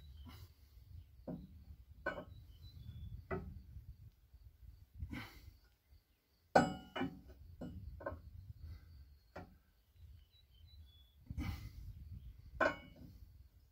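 Metal clanks and knocks of a socket wrench with a steel pipe extension being fitted and worked on the bolts of an Ursus tractor's rear wheel weight. About a dozen separate, unevenly spaced strikes; the loudest, about six and a half seconds in, rings briefly.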